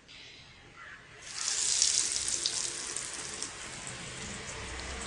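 Hot oil in a nonstick pan sizzling as an egg-dipped, crumb-coated prawn cutlet goes in. The sizzle jumps up sharply about a second in, with crackling, then settles to a steady frying sizzle.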